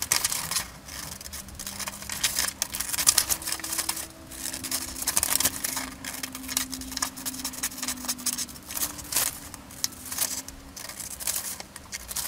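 Scissors cutting through a paper pattern: a run of crisp snips, irregularly spaced, with the paper rustling as it is turned.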